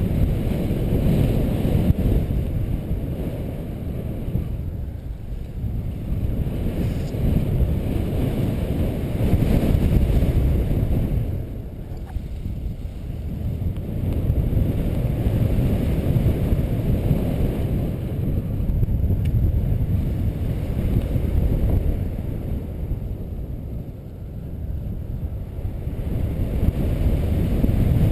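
Wind buffeting the camera microphone on a paraglider in flight: a low rushing noise of airflow that swells and eases several times.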